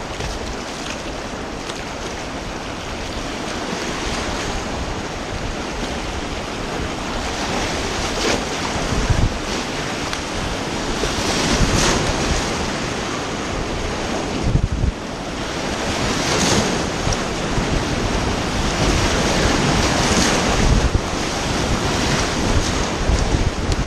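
Whitewater rapids rushing around a kayak, with louder surges of splashing every few seconds as the boat punches through breaking waves, and wind buffeting the microphone.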